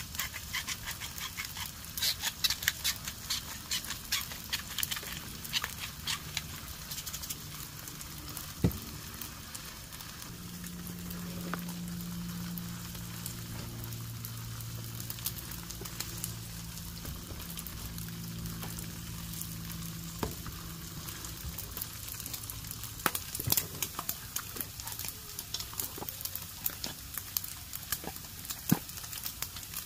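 Sausage and meat frying on a camp cooker, sizzling with a steady crackle of spattering fat. A low steady hum joins in the middle for about ten seconds.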